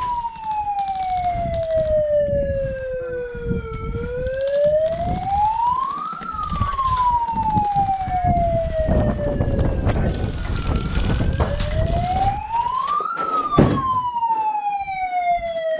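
Siren wailing slowly, its pitch climbing and falling in long sweeps about every seven seconds, with knocks and rustling underneath.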